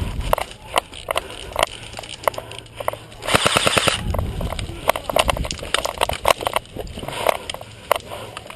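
Airsoft guns firing: scattered sharp single shots and clicks, with a rapid full-auto burst lasting under a second a little over three seconds in.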